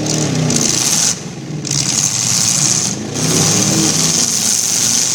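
V8 engines of demolition derby cars, a Lincoln and a Caprice, revving hard, the engine note rising and falling several times as they jockey for position.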